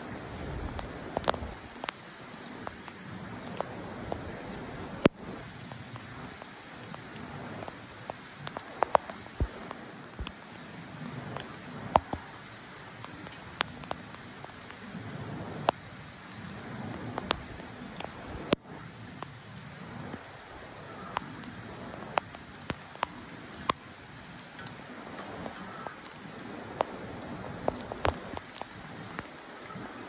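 Light rain: a steady hiss with scattered drops ticking sharply and irregularly on hard surfaces.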